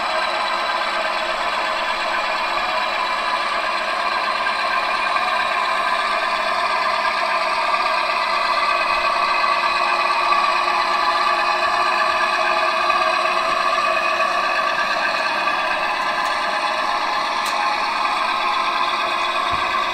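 Gauge 1 model diesel locomotive running with its onboard sound playing a diesel engine at a steady drone through a small loudspeaker, with no deep bass. The drone swells a little midway, and a few faint ticks come near the end.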